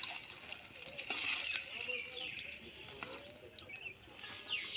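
Water splashing and trickling with small clicks and drips, as when something is washed by hand under running or poured water. A bird chirps a few times near the end.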